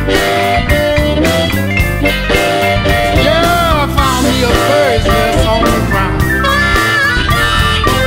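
Blues band recording in an instrumental stretch with no singing: guitar, bass and a steady drum beat, with lead notes bent up and down about halfway through.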